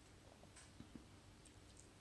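Near silence: quiet room tone with a few faint, short clicks and two soft knocks about a second in.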